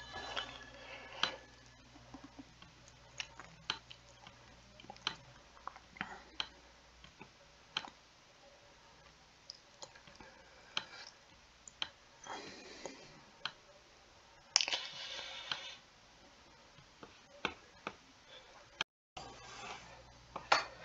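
Faint, irregular computer mouse clicks and light handling noise while drawing, with two short, louder bursts of hiss about twelve and fifteen seconds in.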